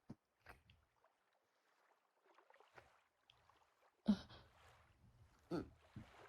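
Quiet kissing sounds close to the microphone: a few soft lip smacks, with short hummed breaths about four and five and a half seconds in.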